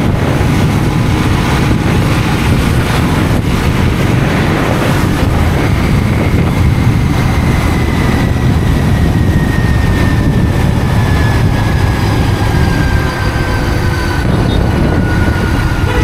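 Steady low rumble of a motor vehicle on the move, with a faint whine slowly falling in pitch in the second half.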